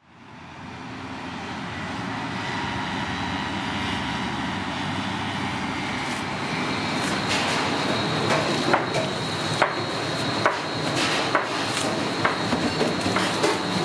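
Kitchen clatter: sharp, irregular clicks and knocks over a steady noisy background that fades in at the start. The knocks come thicker in the second half.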